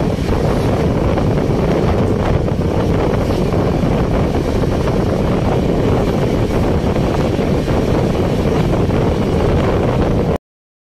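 Wind buffeting the microphone over the steady rumble of a passenger train running at speed, heard from an open coach door or window. It cuts off abruptly near the end.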